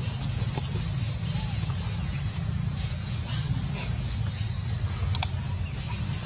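Steady high-pitched insect buzzing with a short dipping note recurring about every two seconds, over a continuous low rumble.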